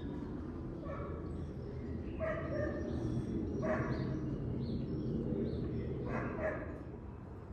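A house cat calling out four times in short meows and chirps, as a cat does when watching birds, with faint high bird chirps between the calls. A steady low rumble runs underneath.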